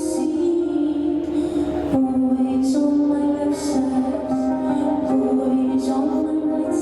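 Slow music with long held notes that change pitch every second or two.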